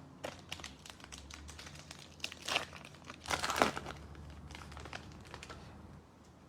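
Crinkling and rustling of trading card pack wrappers and cards being handled by hand, with light clicks and two louder crinkling swishes about two and a half and three and a half seconds in.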